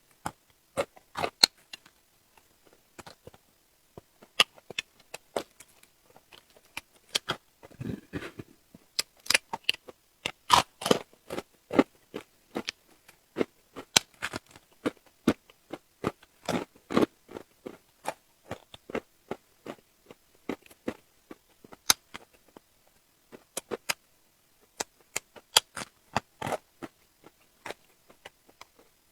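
Close-miked eating of shrimp and octopus: a steady stream of wet mouth clicks, bites and crunches as the food is chewed, with a short duller sound about eight seconds in.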